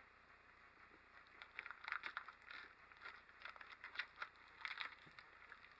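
Faint, irregular clicks and crackles of someone chewing a hickory-smoked beef stick.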